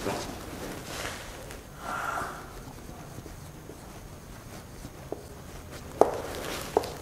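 Felt-tip marker squeaking on a whiteboard in short strokes as lines and letters are drawn. There is a brief higher squeal about two seconds in and two sharper squeaks near the end.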